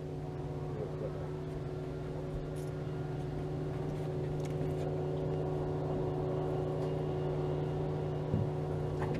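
A boat motor running steadily: a constant low hum with a few held tones, growing slowly louder, with one short bump near the end.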